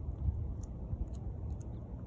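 Wind rumbling on the microphone, uneven and gusty, with a few faint, short, high clicks scattered through it.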